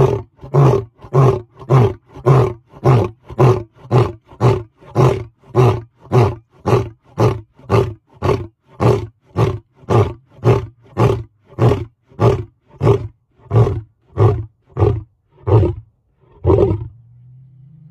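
Male lion roaring at very close range: a long, even series of short, deep grunting roars, nearly two a second. They stop about a second before the end.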